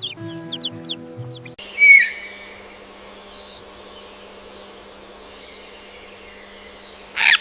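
Chick peeping: short high calls over light background music. Then comes a steady outdoor background with a low hum, a loud short call about two seconds in, and faint high chirps, with another loud short sound near the end.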